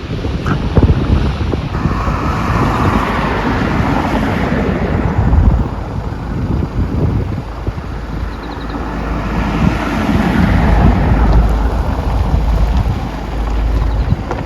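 Wind buffeting the microphone over a steady low rumble, with two long swells of rushing hiss that rise and fall.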